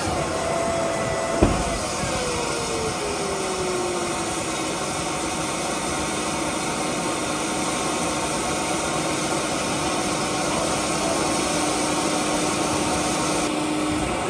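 Steady machine noise with a whine that falls in pitch over the first few seconds and then holds steady, and one sharp knock about a second and a half in.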